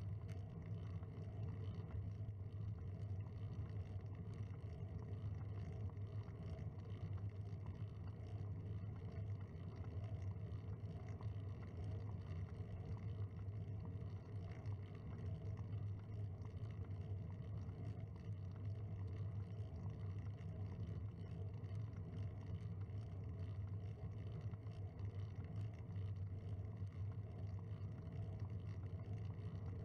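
Steady low rumble of wind and road vibration picked up by a camera mounted on a moving bicycle.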